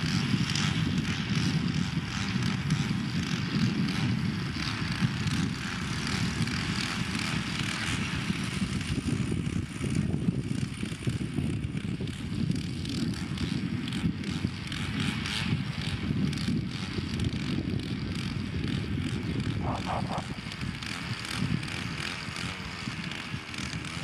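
Wind buffeting the microphone in an open field: an uneven, gusting low rumble with a fainter hiss above it.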